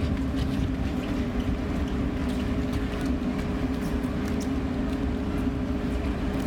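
Steady low rumble with a constant drone, typical of a cruise ship's machinery and ventilation heard on an open deck. Faint scattered ticks sit on top.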